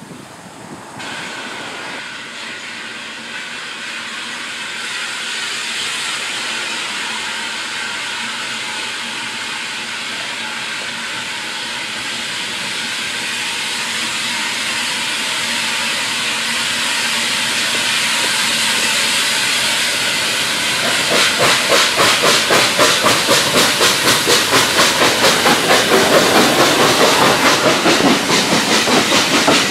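Hunslet 0-6-0ST saddle-tank steam locomotive approaching with a steady steam hiss that grows louder. About two-thirds of the way through it passes close by and a fast regular beat of about three a second sets in as the locomotive and its coaches run past.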